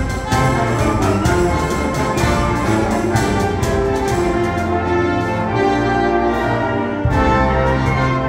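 Concert band of brass and woodwinds playing held chords over low tuba and bass notes, with frequent percussion strikes; the full band comes in fuller about seven seconds in.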